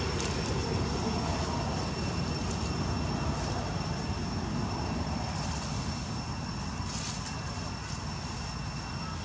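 Steady low outdoor rumble, with a faint steady high-pitched whine running above it.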